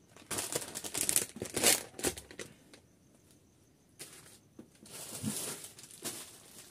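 Plastic product packaging crinkling and rustling as it is handled, in a run of sharp crinkles over the first two seconds. After a short lull there is quieter rustling.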